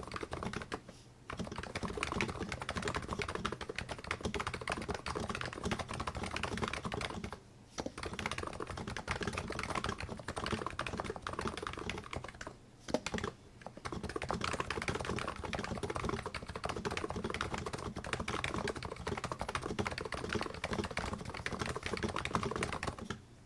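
Fast typing on a Plum NIZ 87 keyboard, its electrostatic capacitive switches fitted with original 45g Topre rubber domes, giving a dense run of keystrokes. It pauses briefly three times.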